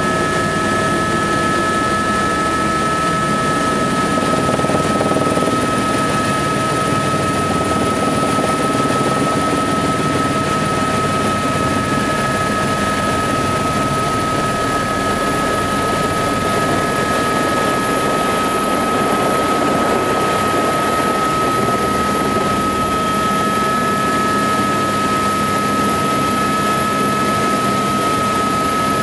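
Helicopter heard from inside the cabin as it comes in to land: a loud, steady drone of rotor and engine with a constant high whine over it.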